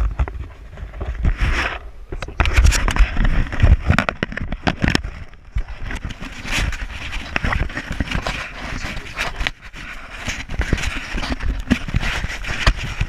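Wind buffeting a handheld action camera's microphone, with irregular rubbing, scraping and knocks as the camera is handled and turned.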